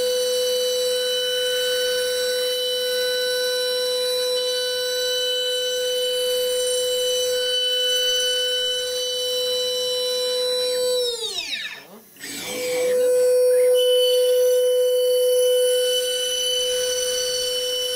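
High-pitched steady whine of a high-speed motor. About ten seconds in it winds down in pitch almost to a stop, then spins back up to the same steady pitch within a couple of seconds.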